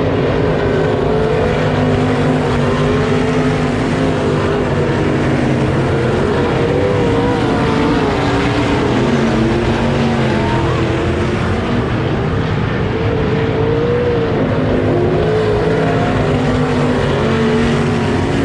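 Several dirt-track race car engines running together in a race, their pitches rising and falling continuously as the cars accelerate and back off.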